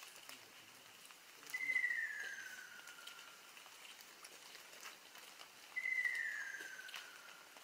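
Ruddy kingfisher calling twice, each call a loud, falling, rolling 'kyorororo' of about two seconds, the second about four seconds after the first.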